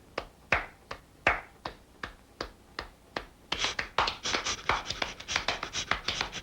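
Hand clapping: one person clapping at an even pace of about three claps a second, joined about three and a half seconds in by several more clapping faster together, then cut off abruptly.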